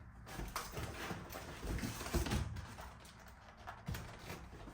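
Faint handling noises with a few scattered soft knocks, as grocery items are moved about and set down.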